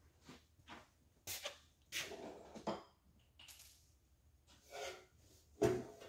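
Scattered short knocks, clinks and scrapes of tools and parts being handled at a workbench, about half a dozen, with the loudest knock near the end.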